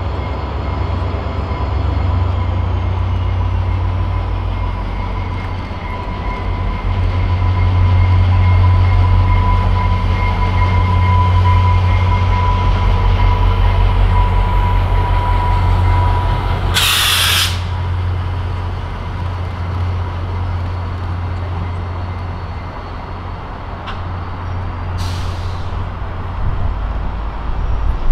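VIA Rail passenger train led by an EMD F40PH diesel locomotive passing: a deep heavy rumble from the locomotive and rolling cars, loudest in the middle, with a steady high whine. A short loud hiss comes about two-thirds of the way through and a fainter one near the end.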